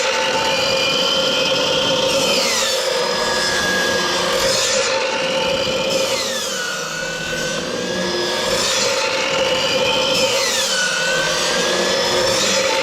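Circular saw running and making repeated passes into a timber beam to cut out a half-lap joint, its whine sinking in pitch and recovering several times as the blade loads in the wood.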